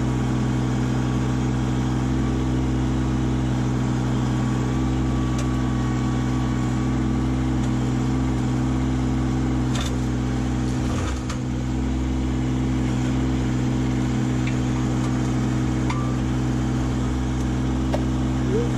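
Kubota LX2610 compact tractor's three-cylinder diesel engine running steadily while the root rake grapple is worked, with a couple of faint knocks about ten seconds in.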